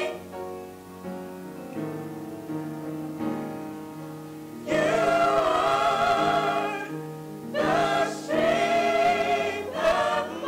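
Gospel choir singing. A softer passage of held chords opens, then the full choir comes in loud about five seconds in, eases briefly, and sings out again.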